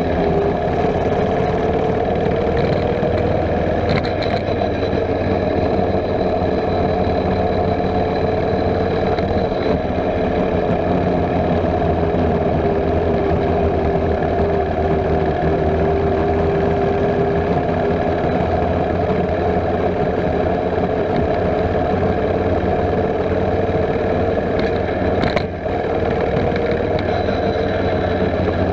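Mini bike's small gas engine running steadily as the bike is ridden along, its pitch rising and falling gently with small throttle changes, with a brief dip near the end.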